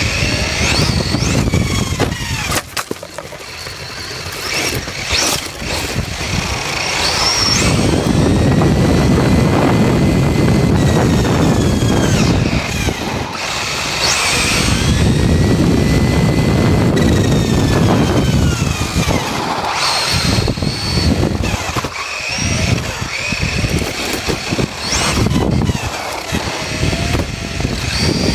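Team Associated RC8.2e 1/8-scale electric buggy on a 4S battery, its motor whining up and down in pitch with the throttle, with a dense rush of tyre and wind noise during the longer fast stretches, heard close up from on board the buggy.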